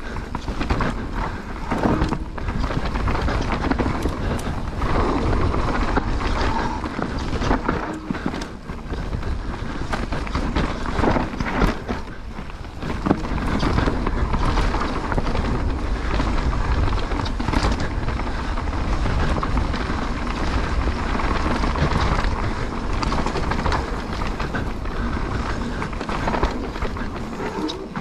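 Mountain bike riding down a dirt trail: wind buffeting the microphone, tyres rolling on the ground, and frequent short knocks and rattles from the bike over bumps.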